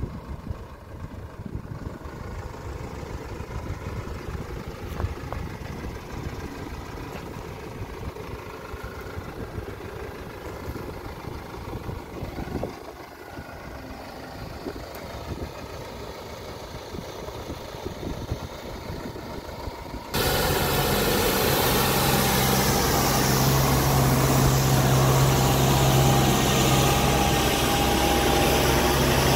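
95 HP tractor engine running while it drives a FRANDENT Eternum N 303.14 power harrow through soil. About twenty seconds in, the sound jumps suddenly to a louder, steady engine and gear drone.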